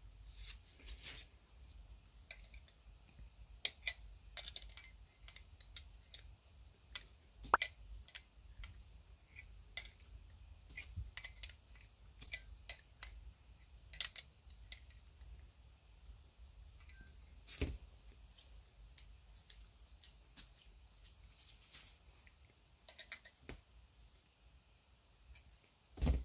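Scattered small metallic clicks and clinks as brass petrol-lamp burner parts are handled and fitted together, with a small spanner on a fitting. A few sharper knocks stand out among the light ticking.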